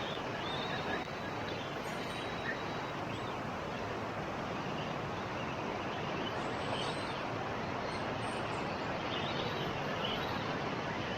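Rock bouncer buggy engine running steadily, heard as an even rush of noise that does not rise or fall.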